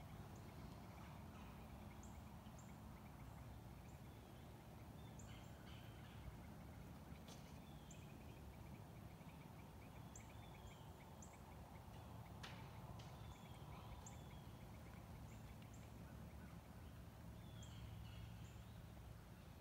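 Quiet woodland near silence: small birds give scattered short, high chirps and a few lower slurred calls over a faint steady low hum, with one sharp tick about two-thirds of the way through.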